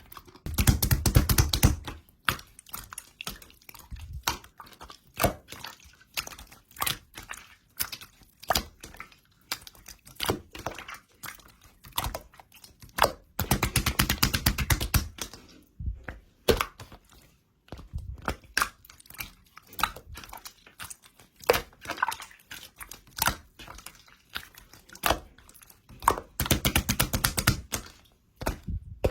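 Hands squishing and poking slime, making sticky clicks and pops. Three times (near the start, in the middle and near the end) it breaks into a second or two of rapid crackling clicks.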